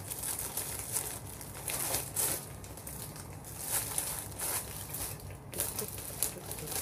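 Plastic courier mailer bag crinkling and rustling in irregular bursts as it is cut open with scissors and pulled apart.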